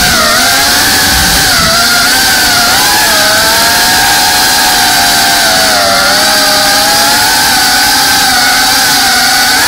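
FPV drone's electric motors and propellers whining steadily, the pitch wavering up and down with the throttle, over a steady hiss of air noise.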